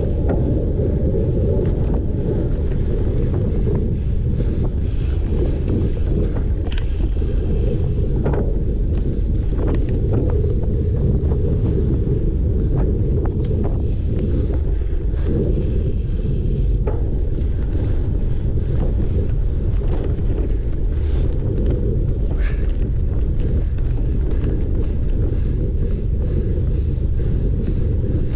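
Heavy wind buffeting on the microphone while a cyclocross bike is ridden at race pace, a steady low rumble with scattered light clicks and knocks.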